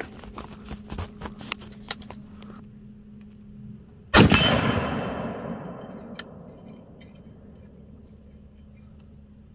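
A single rifle shot about four seconds in, its report echoing and dying away over about two seconds. Before it come a series of light clicks and taps.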